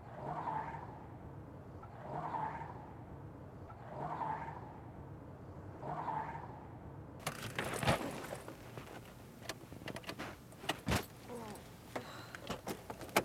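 For about seven seconds, a steady low hum with four slow, evenly spaced swells. Then it changes abruptly to a run of sharp clicks, knocks and jangling as the occupants move about inside a car.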